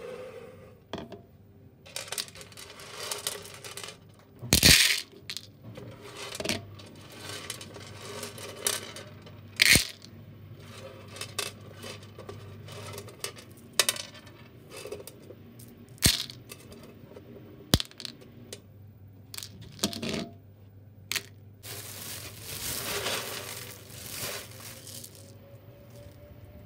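Dry pinto beans being sorted by hand and dropped into a plastic colander: single beans click sharply against the plastic, and handfuls pour in with a short rattle.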